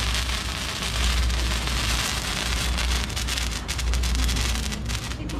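Firework burning with a steady hissing spray and crackling clicks, which come thicker in the second half, over a low rumble.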